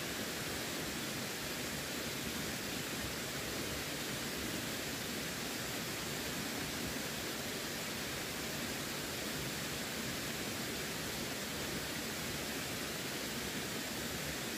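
Steady rush of running water, even and unbroken, with no separate splashes or drips.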